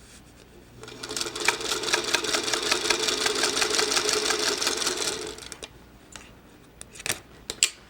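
Sewing machine stitching a seam at a steady, rapid pace for about four and a half seconds, then stopping; a few sharp clicks follow near the end.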